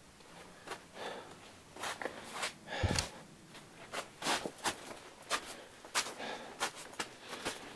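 Footsteps crunching over snow and ice inside a vaulted stone tunnel, about two to three steps a second, with hard breathing from the climber at high altitude. A heavier thump comes about three seconds in.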